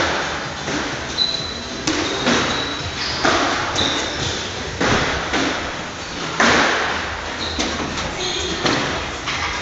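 Squash balls being struck with rackets and smacking against the court walls: sharp, echoing knocks at irregular intervals of about a second, with a few short high squeaks in between.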